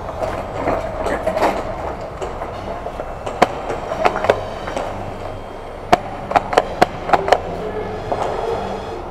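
Sharp snaps of airsoft gunfire: a few single shots, then a quick string of five in about a second and a half, over crunching footsteps on rubble-strewn concrete.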